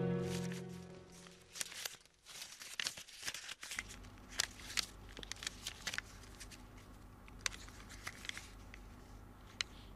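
Soft, sad background music fading out in the first second or two. Then scattered light clicks and rustling over a faint low hum.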